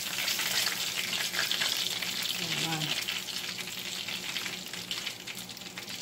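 Hot oil crackling and sizzling in a frying pan where breaded fish fillets have finished frying and are lifted out with tongs. The crackle eases a little after the middle.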